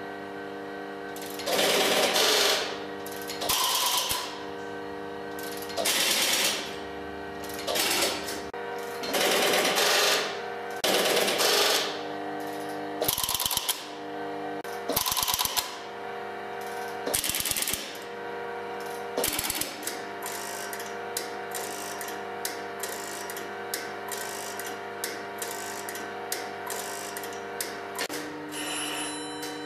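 Electromechanical automatic telephone switching gear stepping: loud bursts of rapid mechanical clicking and ratcheting about every two seconds, giving way to scattered single clicks in the last third, over a steady hum.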